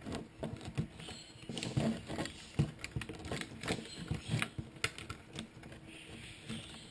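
Small irregular clicks and taps of hands handling a plastic toy skid steer loader model.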